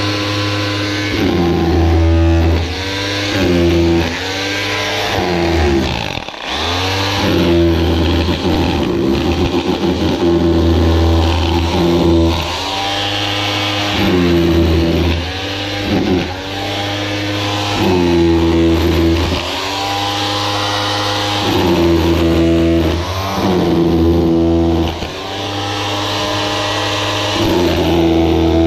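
A Makita electric power tool, a hammer drill or breaker, chiselling out concrete blockwork and mortar. It runs in repeated bursts of one to a few seconds, with short pauses as the trigger is released.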